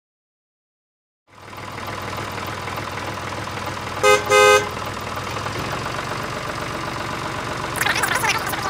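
Silence for about a second, then a miniature DIY toy tractor's small motor running steadily, with two short horn toots about four seconds in and a crackling near the end.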